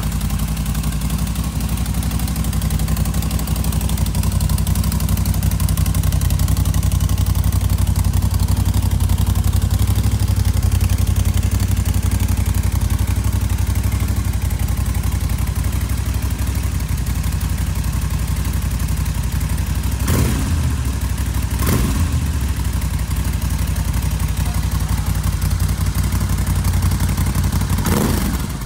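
2017 Moto Guzzi V7 III Special's air-cooled transverse V-twin idling through Mistral short slip-on silencers, probably with their dB-killer baffles still fitted, with two quick throttle blips about two-thirds of the way through.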